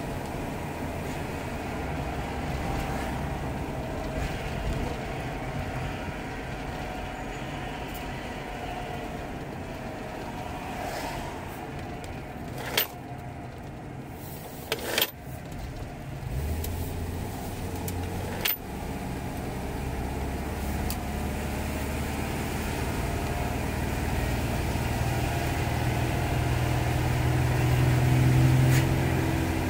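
Cabin sound of a 1979 Ford Granada 3.0 automatic on the move: its 3.0 V6 engine and road rumble, with a whine that the driver suspects comes from the differential. A few sharp knocks come in the middle as the car slows, then the engine note builds as it pulls away again.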